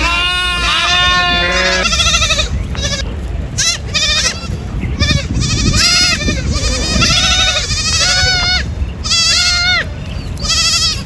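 Several goats bleating over and over, many short quavering calls that often overlap, with a low rumble underneath.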